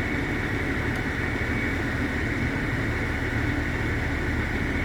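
A vehicle engine running steadily, with a constant hiss over it.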